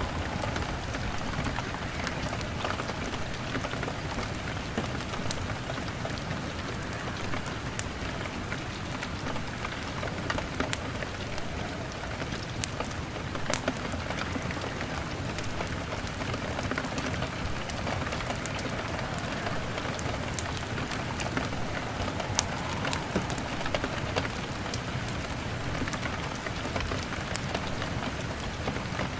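Steady rain on a window with a log fire crackling through it, heard as many scattered sharp pops over an even rush of rain.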